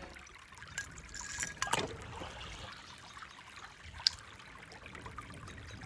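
Faint handling sounds of plastic toys and packaging: soft rustling with a few light clicks, the sharpest about four seconds in.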